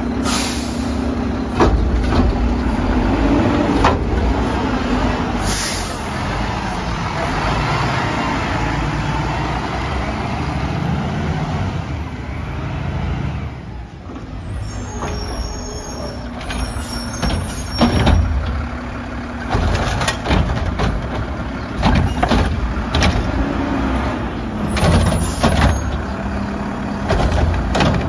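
Mack LR McNeilus Contender garbage truck running at the curb, with short hisses of air near the start and about five seconds in. In the second half, repeated knocks and bangs come as the Curotto Can arm lifts and dumps carts into the hopper.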